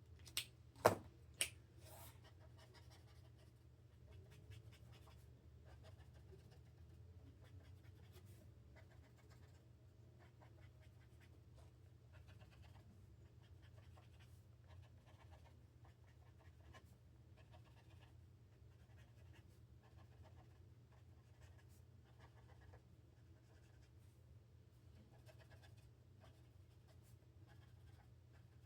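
A pen drawing on paper, with faint, irregular scratching strokes over a low steady hum. Three sharp clicks come about a second in.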